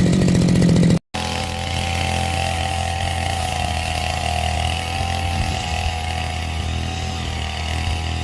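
Small engine of a grass-cutting brush cutter running on a test after a carburettor service. It runs fast and loud for about a second, then after a brief break it runs steadily at a lower speed, idling.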